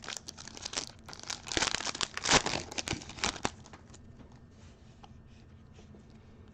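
Foil wrapper of a trading-card pack being torn open and crinkled in several crackling bursts over the first three and a half seconds, then only faint rustling.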